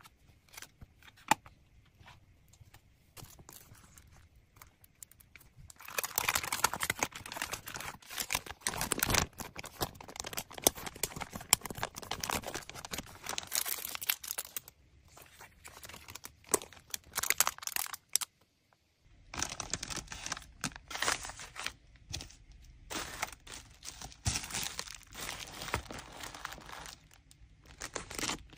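Clear plastic packaging bags and wrap crinkling and rustling as small items are handled and packed. The first few seconds hold only light clicks and taps. Dense crinkling starts about six seconds in, thins out, stops briefly, then comes back strongly.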